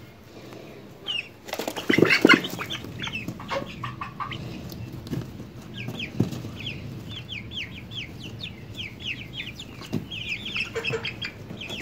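Chicken chicks peeping: a run of short, high, downward-sliding peeps, with a burst of wing flapping and scuffling about a second and a half in that is the loudest part. The chicks are startled by an unfamiliar bowl of live maggots.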